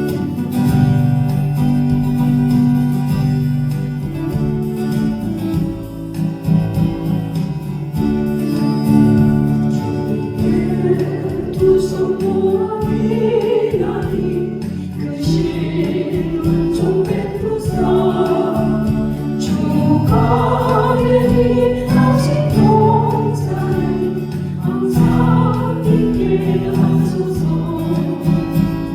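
Gospel hymn sung with a sustained instrumental accompaniment. The first ten seconds or so are accompaniment with held chords, then the singing voice comes in over it.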